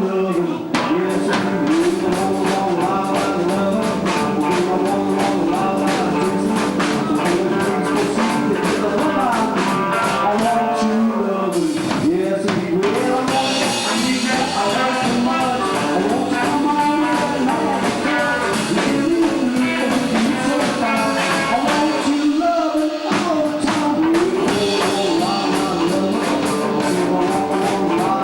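Rock and roll band playing, with electric guitar and drum kit carrying the music and the guitar lines bending in pitch.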